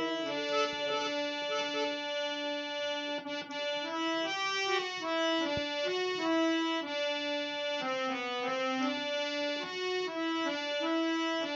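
Instrumental music between sung verses of a ghazal: a melody of held notes on a reed-toned keyboard instrument, with no singing.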